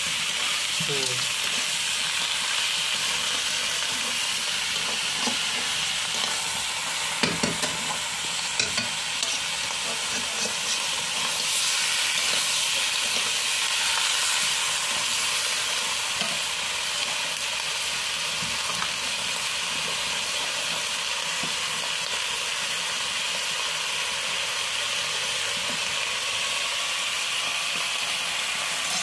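Duck pieces sizzling steadily as they fry in spices in a steel wok, with a metal spatula scraping and clinking against the pan, a cluster of clinks about seven to nine seconds in.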